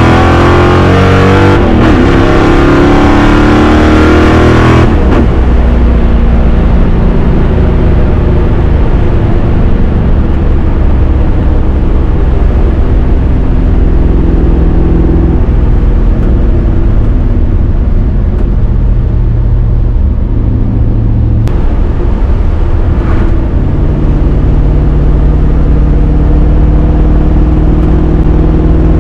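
Ford 302 V8 in a 1965 Mustang fastback running through Shelby GT350-style side-exit exhausts, heard from inside the cabin. It pulls hard with the note climbing twice, a brief break about two seconds in, then drops about five seconds in and settles into steady cruising with the engine note stepping a few times.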